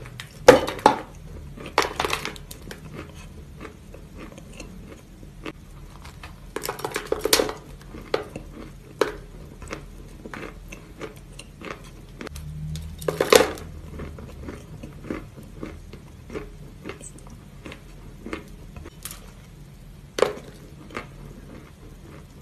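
Close-miked ASMR bites and chewing of dry, crumbly white cookies: a few loud crunches, about half a second in, around two seconds, around seven, thirteen and twenty seconds, with many small crackling chews in between.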